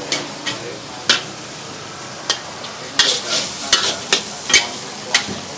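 Food sizzling in a hot pan while a metal spatula stirs it, with sharp, irregular clanks of metal against the pan.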